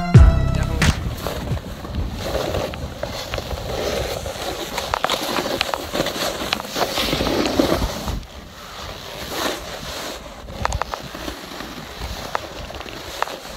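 Crunching footsteps in snow, with wind and handling noise on a handheld phone microphone: an uneven rustling with scattered clicks.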